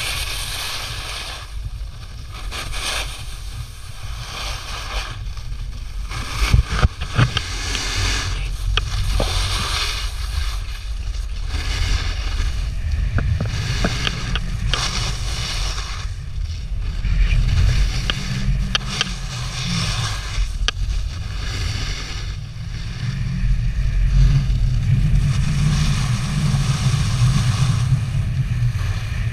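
Snowboard sliding and carving over summer snow, its edges scraping in surges with each turn, under a steady low rumble of wind buffeting the camera microphone. A few sharp knocks come about six to seven seconds in.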